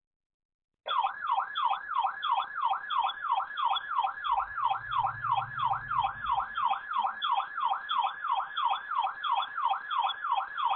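Weather alert radio's warning alarm: a warbling siren tone that sweeps up and down about three times a second, starting about a second in.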